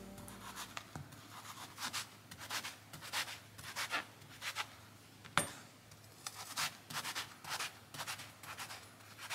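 Chef's knife slicing through an eggplant on a wooden cutting board: a regular run of cuts at about two a second, with one sharper knock about five and a half seconds in.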